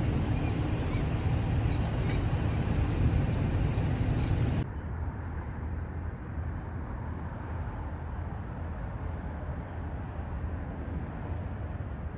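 Steady low vehicle running noise. About four and a half seconds in it cuts abruptly to a quieter, duller stretch of the same kind of noise.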